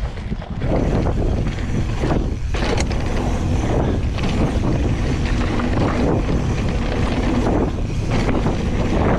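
Hardtail mountain bike being ridden on a dirt trail: steady, loud wind buffeting on the GoPro's microphone over tyre rumble, with scattered knocks and rattles from the bike over bumps.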